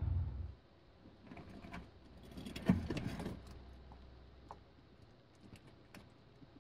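Bearded dragon grabbing a hornworm and eating it: rustling and clicks with one sharp snap of the bite about two and a half seconds in, then a few soft clicks of chewing.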